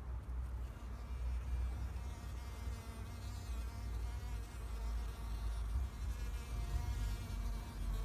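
A bee buzzing in flight, a steady hum whose pitch wavers slightly, over a low rumble.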